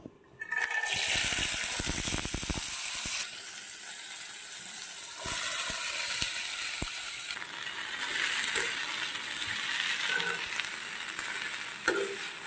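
Shredded banana flower with chickpeas dropped into hot oil in a kadai: a loud sizzle starts suddenly about half a second in and is loudest for the first few seconds. It then settles into steady frying while a spatula stirs and scrapes the pan, with a sharp clink near the end.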